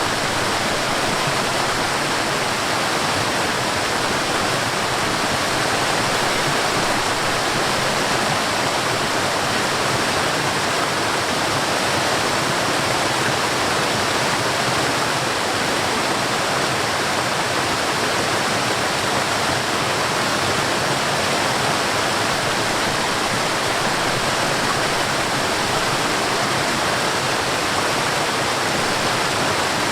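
Steady rush of water in a mountain stream tumbling over a waterfall, an even, unbroken sound with no changes.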